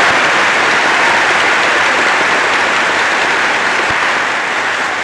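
Large audience applauding steadily in an old, thin-sounding archival recording of a speech.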